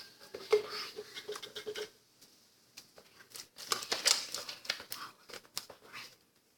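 Sticky, half-activated slime being kneaded and pulled by hand, giving wet squelches and quick clicking crackles in two stretches, with a short lull about two seconds in.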